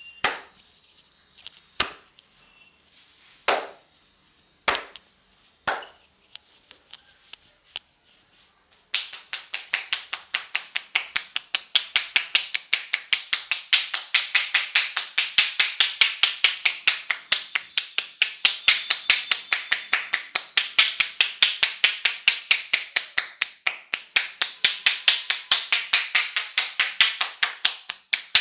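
Hands striking a head in an Indian head massage. A few separate slaps come first; from about nine seconds in there is a fast, even run of tapping strokes, several a second.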